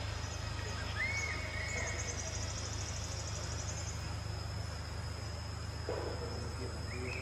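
Outdoor insect ambience: a steady high insect drone, with a rapid high trill for a couple of seconds near the start and a short chirp about a second in, over a steady low hum.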